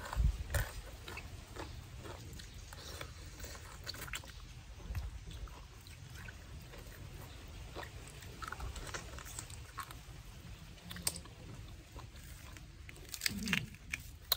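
Close-miked eating sounds: a person chewing a mouthful, with scattered small clicks and taps as fingers pick food and shellfish from the plate. A brief low vocal murmur comes near the end.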